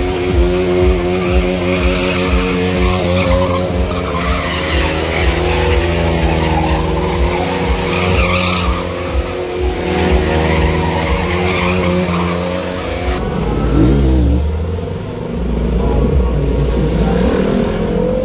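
Stunt motorcycle engine held at high revs while its rear tyre spins and skids through drift circles on concrete. About thirteen seconds in, the steady note breaks off and the engine revs up and down.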